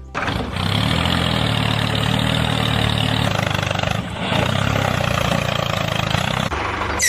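A motor running steadily, with a brief dip about four seconds in.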